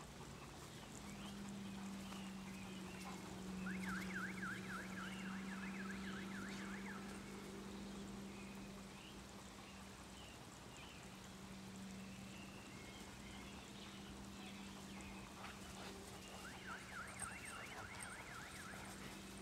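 Faint garden ambience: birds chirping on and off over a steady low hum, with a rapid warbling trill heard twice, once early and once near the end.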